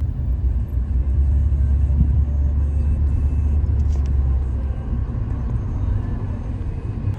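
Low, steady rumble of a moving vehicle, easing a little about two-thirds of the way in.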